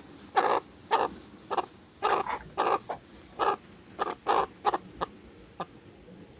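Chickens clucking: about a dozen short clucks at an uneven pace, some in quick pairs. The clucks thin out near the end.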